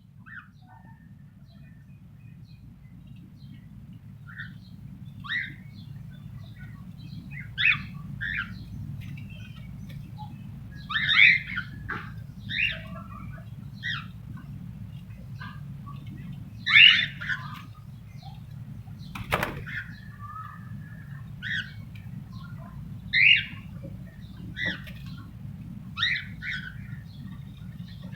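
Cockatiels giving short chirps and calls at irregular intervals, a few of them louder, over a steady low rumble. One sharp click about two-thirds of the way through.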